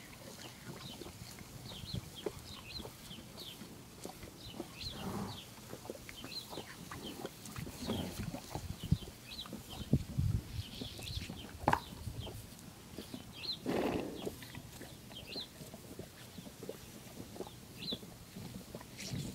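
Horse lapping and slurping water from a garden hose nozzle: irregular wet mouth noises and clicks that grow busier and louder in the middle, with a longer noisy slurp about two-thirds of the way through. Birds chirp in the background throughout.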